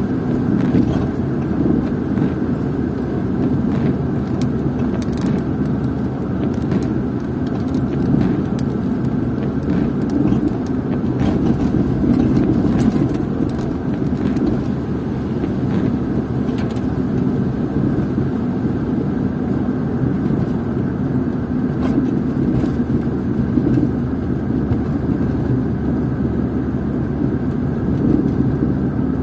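Car interior noise while driving: a steady rumble of engine and tyres, with scattered faint ticks.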